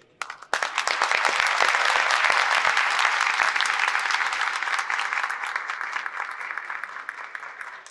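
Audience applauding: a dense patter of hand claps that starts about half a second in and gradually dies away toward the end.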